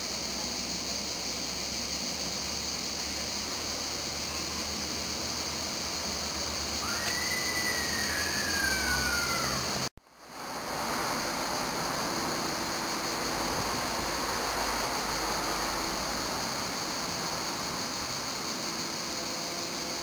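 Steady background hiss, with one faint whistled call that rises and falls about seven seconds in, and a brief dropout halfway through.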